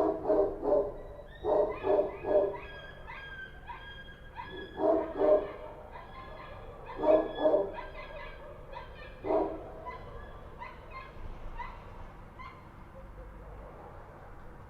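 Street dogs barking. A nearer dog gives loud barks in quick runs of two to four, and fainter dogs answer further off. The barking dies away near the end.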